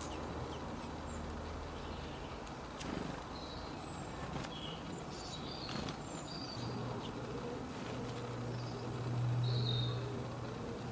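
Small songbirds giving short, high chirps, scattered and spaced apart, over a low steady hum that grows louder in the second half.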